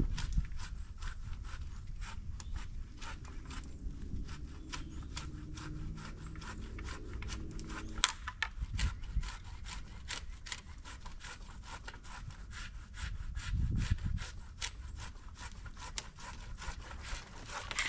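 Fiskars pole saw blade cutting through a tree overhead with steady, rapid back-and-forth strokes, the teeth rasping in the wood. A few dull low thumps come through about 8 seconds in and again near 14 seconds.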